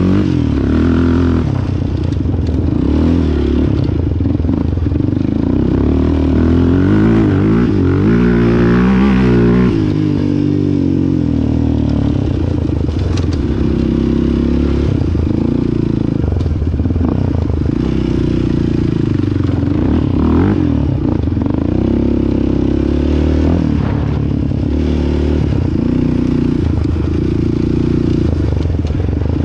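Sport quad engine running hard on a dirt trail, its pitch rising and falling as the throttle is worked, most changeable about a third of the way in, with steadier stretches elsewhere.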